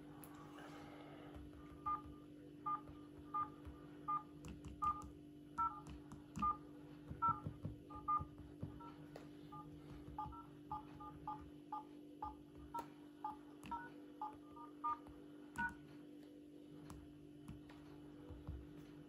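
Mobile phone keypad DTMF tones: a string of short two-note beeps, one for each key pressed on the dial pad during a call, mostly one every half second or so and sometimes quicker pairs. They begin about two seconds in and stop a few seconds before the end.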